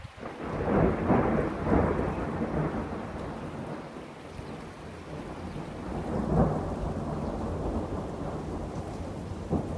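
Thunder: a clap that breaks suddenly and rumbles loudest over the first two seconds, then rolls on more quietly, with a second swell about six seconds in.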